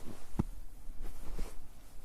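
Footsteps on a snow-covered road: two steps about a second apart, the first the louder.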